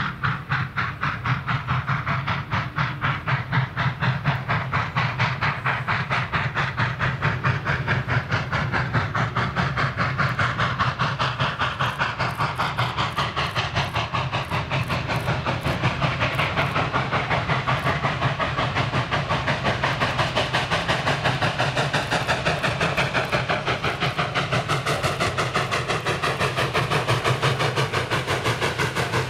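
Norfolk & Western steam locomotive working a train, its exhaust chuffing in a steady, even beat.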